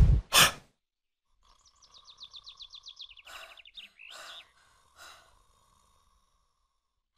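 A rapid run of high chirps, about ten a second and stepping down in pitch, over a steady mid tone, followed by three soft breathy puffs.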